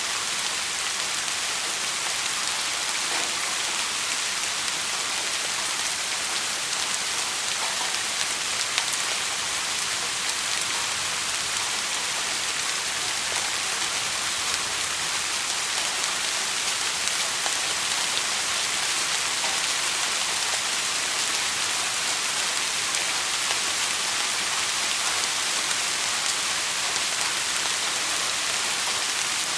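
Steady rainfall, an even hiss of many drops hitting a surface, with scattered individual drop ticks.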